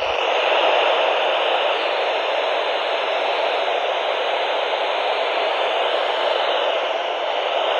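Weather radio receiver hissing with static in place of the broadcast voice: a steady, even hiss that starts suddenly.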